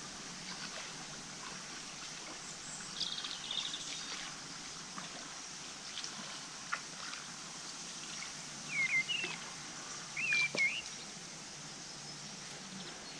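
Birds calling over a steady outdoor background hiss: a brief trill about three seconds in, then two louder rising-and-falling calls in the second half.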